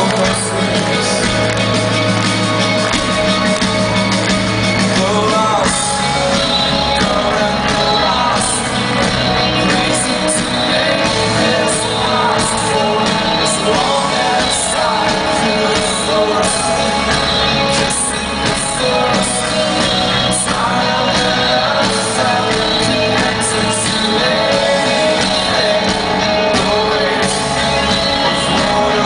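Live rock band performing a song, a male lead voice singing over electric guitar and drums. The drums and cymbals come in fuller about six seconds in.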